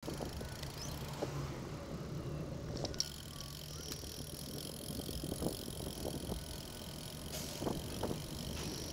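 A bicycle riding along a paved road and bike path, heard through a bike-mounted camera: steady tyre and wind rumble with a few sharp clicks and knocks from the bike and mount going over bumps.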